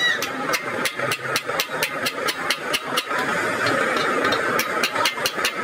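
Hammer tapping a steel chisel along the seam of a truck radiator's tank: quick, sharp metal-on-metal strikes about four a second, thinning out briefly a little past the middle. A steady engine-like hum runs underneath.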